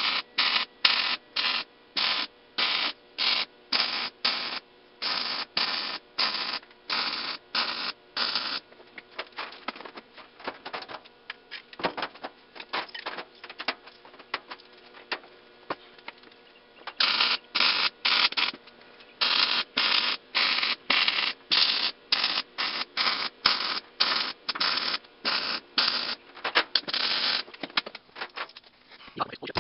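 Wire-feed welder laying short stitch welds, a quick burst of arc noise about twice a second, while angle pieces are welded onto an expanded-metal charcoal grate. The welding stops for about eight seconds in the middle, leaving fainter handling noise, then resumes in the same rhythm and ends a couple of seconds before the close.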